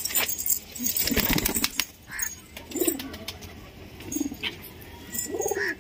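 Domestic pigeons: a flurry of wing flapping and rustling in the first couple of seconds, then several short coos.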